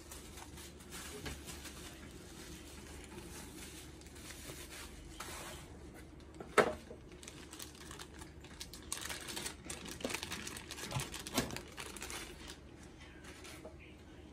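Plastic packaging, bubble wrap and a clear plastic bag, being handled and unwrapped by hand. It crackles throughout, with one sharp click about six and a half seconds in and the busiest handling a few seconds later.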